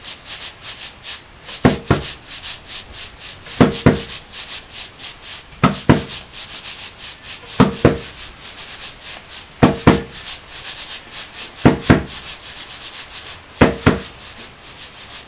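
A rhythmic percussive beat: quick shaker-like strokes about five a second, with a heavy double hit about every two seconds.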